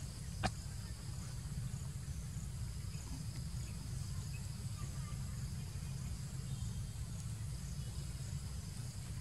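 Outdoor ambience of insects chirping in a faint, steady, pulsing pattern over a steady low rumble, with one sharp click about half a second in.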